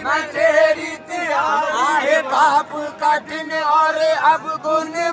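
Men's voices in a melodic devotional chant, the melody winding up and down over a steady held note.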